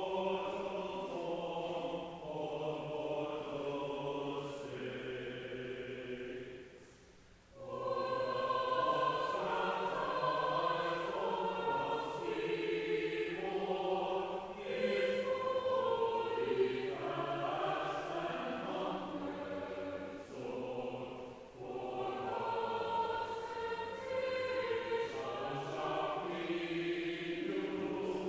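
Church choir singing in sustained phrases, with a brief pause about seven seconds in.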